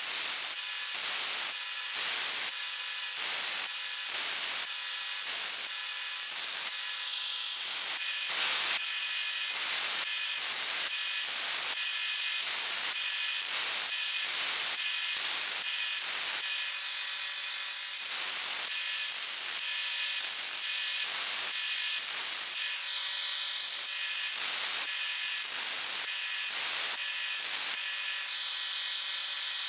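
Belt grinder grinding the edge bevels of a steel dagger blade: a steady, high-pitched grinding hiss that pulses about every half second.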